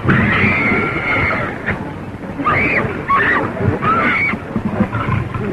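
Shrill animal screeches from an old film soundtrack: one long cry at the start, then several shorter cries that rise and fall in pitch, over a constant low rumble.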